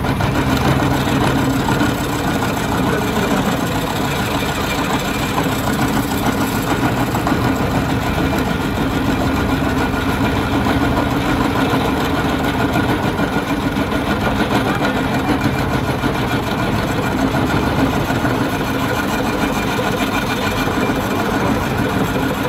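Metal lathe running steadily, a steel shaft spinning in its chuck: an even mechanical hum with a few held pitches.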